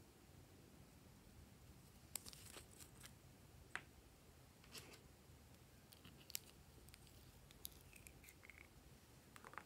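Near silence broken by faint scattered clicks and small scrapes of a plastic lip balm tube being opened and handled, with a few short squeaky rubs near the end as the balm is dug out with a plastic stick.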